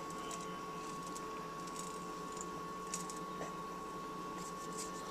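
Quiet room tone with a faint steady electrical hum, and faint soft ticks and rustles as grated Parmesan is sprinkled by hand onto tomato slices.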